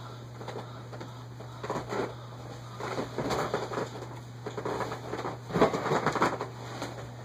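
Irregular rustling and clicking of things being handled close to the microphone, in three bouts with the loudest about two thirds of the way through, over a steady low electrical hum.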